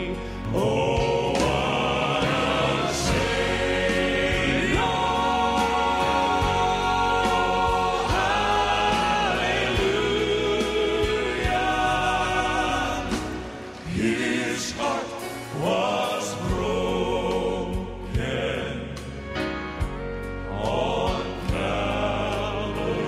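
A male gospel vocal quartet singing together in harmony, holding long notes with a slight vibrato.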